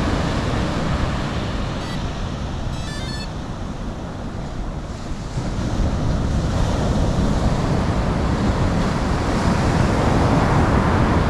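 Surf breaking on a beach: a steady rushing wash that swells and eases, with wind buffeting the microphone. A brief high chirping sounds about three seconds in.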